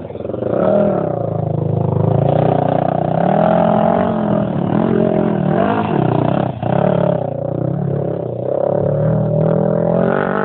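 Off-road vehicle engine running loudly and revving up and down repeatedly, its pitch rising and falling several times.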